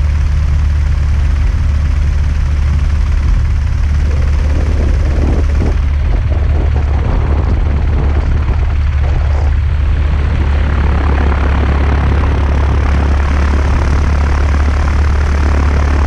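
Single-engine light aircraft's piston engine and propeller running at low power while taxiing, a loud steady low drone.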